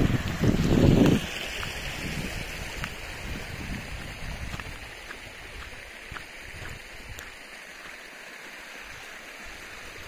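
Small rocky mountain stream trickling over stones, a steady rushing hiss, with a louder low rumble in the first second or so.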